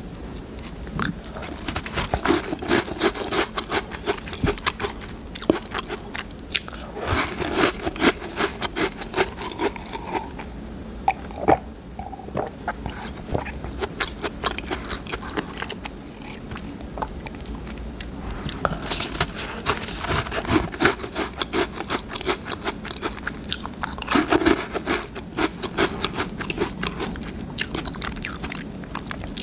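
Close-up biting and crunchy chewing of Butter Ring pistachio butter cookies: rapid crisp crunches in two long spells, with a quieter stretch of softer chewing in the middle.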